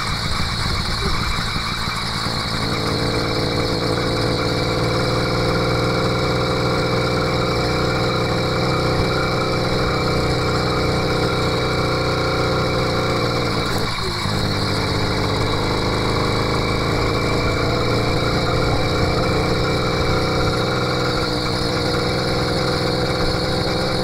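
An 80cc two-stroke motorized-bicycle engine kit running under way, a steady engine note. About two seconds in its pitch rises and then holds. A little past halfway it dips briefly and picks back up.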